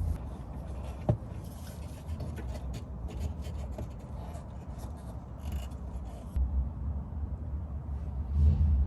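Scraping and light clicking of hands and tools working on a car's underbody fuel pump assembly, with one sharper click about a second in, over a low rumble.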